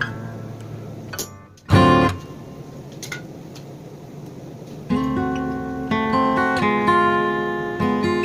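Acoustic guitar music, plucked and strummed. It drops almost to nothing about a second and a half in, comes back with one loud strum, and runs on with sustained chords from about five seconds in.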